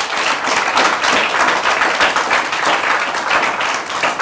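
Audience applauding: many hands clapping at once, steady and loud throughout.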